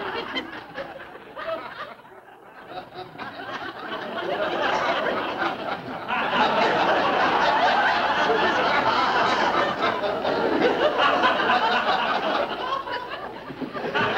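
Studio audience laughing: a brief lull about two seconds in, then the laughter swells into a long, loud laugh from about six seconds in that eases off near the end.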